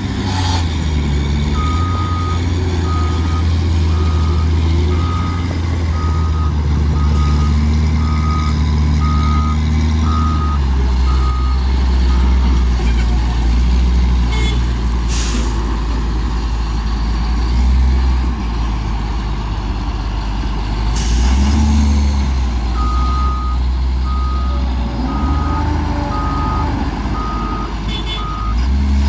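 Cat 966L wheel loader's diesel engine running and revving as it works. A reversing alarm beeps steadily, about three beeps every two seconds, for about ten seconds at the start and again for several seconds near the end. A few short hisses come in between.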